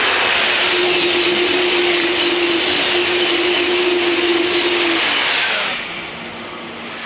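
Eurostar high-speed train passing close at speed: a loud, even rush of wheels on rail and air, with a steady humming tone under it. The sound drops away suddenly near the end as the last car goes by.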